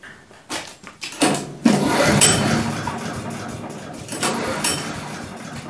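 Cold single-cylinder petrol engine of a wood chipper being pull-started: after a pull it catches and runs, gradually getting quieter, with a couple of brief surges near the end.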